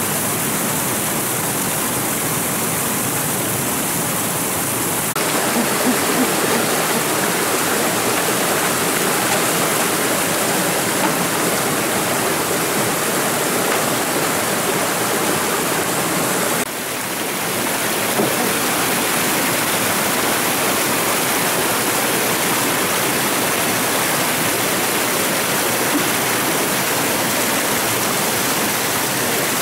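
Shallow rocky stream running over stones: a steady rush of water that jumps abruptly louder about five seconds in and shifts again, with a brief dip, about seventeen seconds in.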